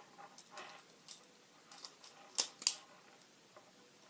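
A few light metallic clicks and clacks from a butterfly knife's handles being handled, with two sharp clicks close together about two and a half seconds in.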